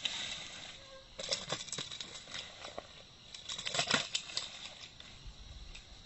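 Hooked snakehead thrashing at the water's surface: two bursts of rapid splashing and slapping, the first about a second in, the second and louder one around four seconds.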